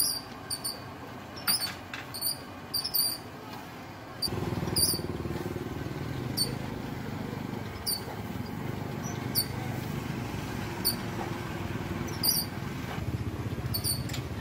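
Street-side ambience with short, high-pitched squeaks recurring every second or so, sometimes in pairs. A steady low rumble sets in about four seconds in and continues.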